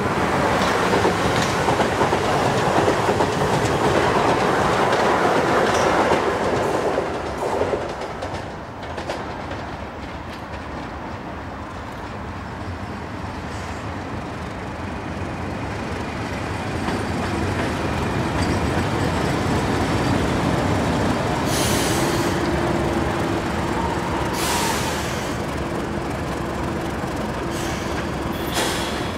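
Class 31 diesel locomotive running light engine, its English Electric V12 diesel getting louder as it comes closer and passes, with a few brief high-pitched screeches near the end. A loud rushing noise fills the first seven seconds before dropping away.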